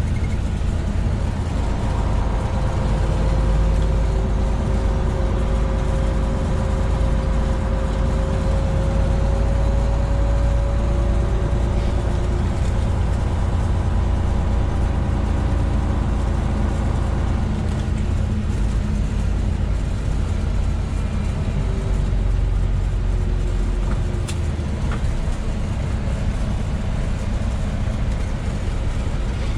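Semi truck's diesel engine and road noise heard inside the cab while driving: a steady low rumble with a faint whine that rises slowly, the rumble easing a little about three quarters of the way through.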